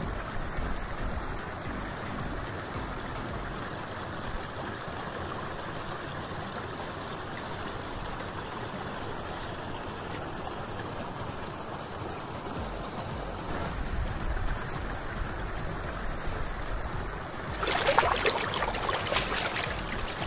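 Steady rushing and trickling of shallow water, with a louder burst of splashing near the end.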